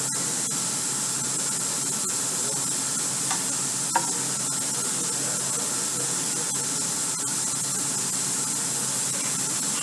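Steady hiss with no change in level, and a faint click about four seconds in.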